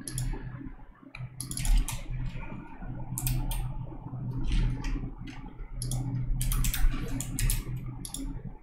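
Computer keyboard typing: irregular runs of key clicks, over a low steady hum.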